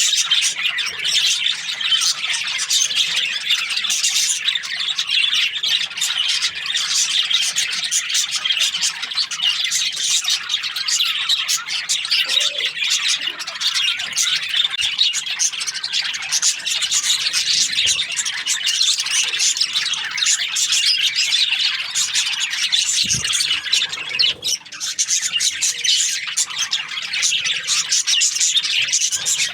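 A flock of budgerigars chirping and chattering continuously, many short high calls overlapping, with a brief lull a little before the end.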